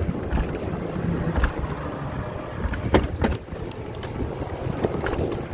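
Wind buffeting the microphone during an e-bike ride in freezing rain, a rough, gusting rumble. About three seconds in come two sharp knocks.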